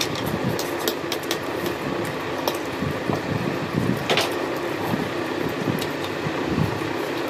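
Instant noodles being slurped and eaten with forks, with short clicks of forks on the trays and one louder slurp about four seconds in, over a steady background hum.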